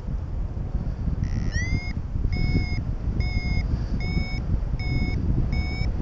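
Paragliding variometer sounding its climb tone: short beeps that repeat about once every 0.8 s, starting about a second in with an upward-gliding first beep, which signals the glider is climbing in a thermal. Wind rushes on the microphone underneath.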